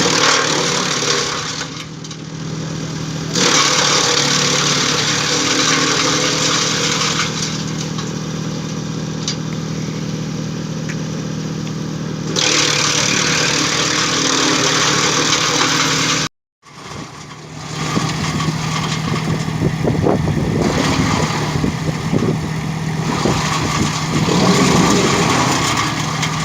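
DURKYA 600T heavy-duty shredder (wood chipper) running with a steady hum, with long loud noisy stretches as drumstick tree branches are fed in and chipped. The sound breaks off for a moment a little past halfway, then the machine carries on chipping with a crackling noise.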